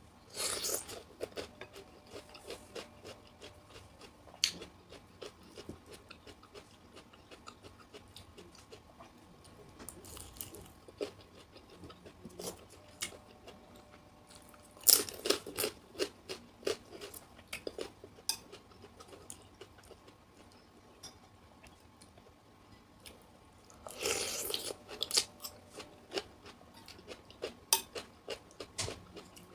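Crunchy chewing and biting of raw fruit and vegetables in asinan Betawi (jicama, cucumber, carrot, bean sprouts). Three louder bouts of crunching come near the start, about halfway through and about five seconds before the end, with lighter chewing clicks in between.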